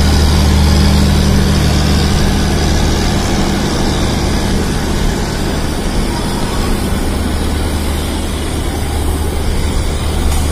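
Diesel locomotive engine running with a steady low drone, over the rumble and rush of a moving train. The drone eases somewhat in the middle and strengthens again near the end.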